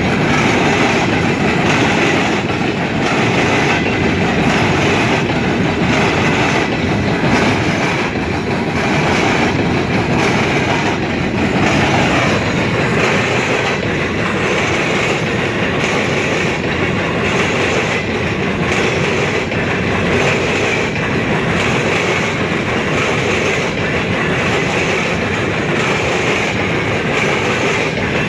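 Empty CSX coal cars of a freight train rolling past at close range: a steady rumble and rattle, with the wheels clacking over the track again and again.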